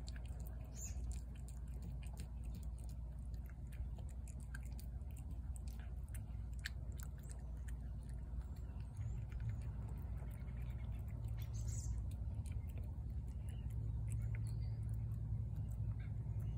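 A cat chewing wet food (shredded chicken in gravy) from a plate: a steady run of small, wet clicks and smacks, over a low steady hum.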